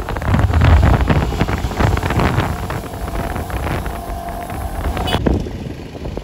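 Wind buffeting the microphone of a pillion rider on a moving motorcycle, over the rumble of the engine and surrounding traffic. The buffeting eases near the end.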